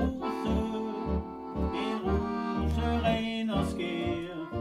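Piano accordion playing a melody in sustained reedy chords over short, regularly pulsing bass notes.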